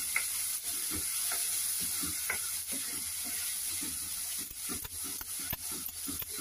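Ground masala paste frying in oil in a pan, sizzling with a steady hiss while a spoon stirs and scrapes through it, the short scrapes and taps coming faster near the end.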